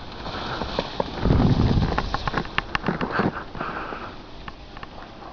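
Heavy breathing close to the microphone, the breaths coming as hazy puffs. In the middle, a loud low rumble lasts about a second, then a quick run of sharp clicks follows.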